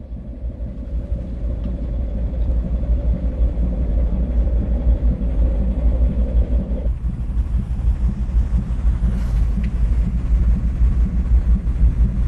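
Wind buffeting the microphone on a ship's open deck at sea, a loud, uneven low rumble that builds over the first few seconds. A steady hum under it cuts off about seven seconds in.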